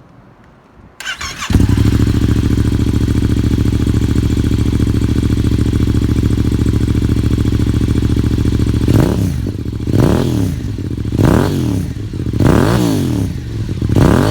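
Motorcycle engine fitted with a Beams aftermarket silencer with its baffle removed: it cranks briefly, catches about a second and a half in, and idles steadily. From about nine seconds on the throttle is blipped five times, each rev rising and falling back to idle.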